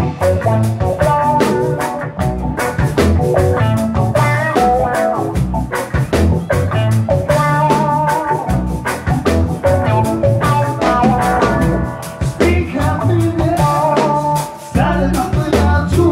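A live band playing amplified music on electric guitars and a drum kit, with a steady beat.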